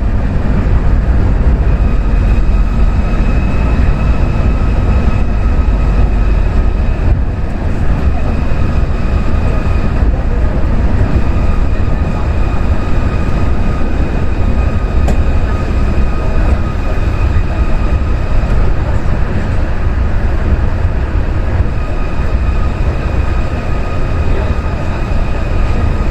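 Osaka Monorail straddle-type train running, heard from inside the car: a steady low rumble of its rubber tyres on the concrete guideway with a steady high motor whine over it.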